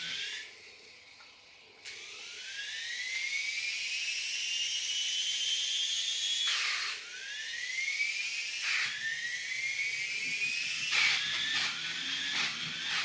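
Small electric drive motor of a toy RC motorbike whining and rising in pitch as it speeds up, three times in a row. Each run-up cuts off suddenly, the first about seven seconds in, and there are a few clicks and knocks near the end. The owner suspects the battery is already running down.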